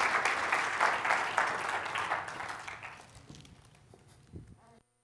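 Congregation applauding, the clapping dying away over about three seconds into near quiet, with a soft thump near the end before the sound cuts off suddenly.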